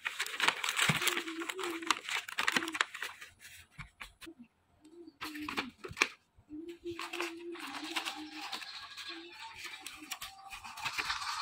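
Plastic snack wrappers and paper gift bags crinkling and rustling as sweets are packed by hand, in irregular bursts of small clicks and crackles, with a quieter lull about four seconds in.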